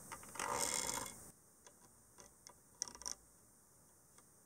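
Tweezer tips sliding lightly over the fine legs of a surface-mount ATI graphics chip: a scraping rasp about a second long, then scattered light ticks, loudest about three seconds in. It is an ear test for broken solder joints: soldered legs sound dull, and legs that have lost contact with their pads give a higher-pitched tick.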